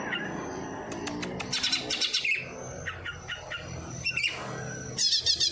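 Songbird chirping in several short bursts of quick, sharp notes, imitating sparrow and prinia calls.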